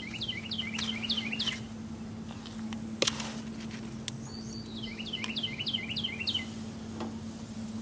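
A songbird singing two phrases, each a quick run of about six down-slurred notes, one at the start and one about five seconds in. A single sharp click about three seconds in.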